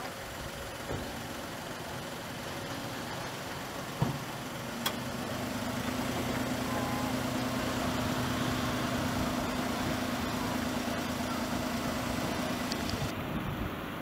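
Motor vehicle engine idling, a steady low hum that comes in about four seconds in and stops about a second before the end. There are two sharp knocks near four and five seconds.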